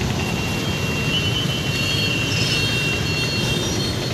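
Steady city road traffic passing close by: engines and tyres of a minivan and cars moving through a crossing, with a faint thin high tone in the first three seconds.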